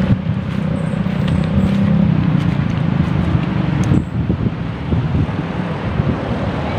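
Road traffic: motor vehicle engines running and passing close by, a steady low hum under the noise that is strongest in the first two seconds.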